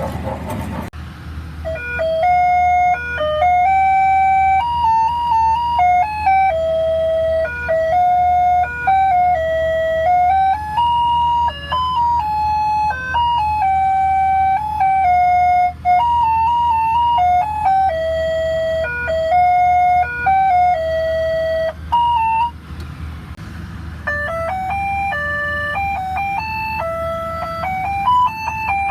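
A tinny electronic chime tune plays a simple melody of clear single notes over a steady low hum. It breaks off briefly a little after twenty seconds in, then starts again.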